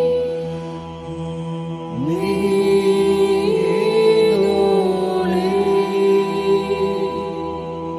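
Background music: slow long-held notes over a steady drone, with a new phrase sliding in about two seconds in.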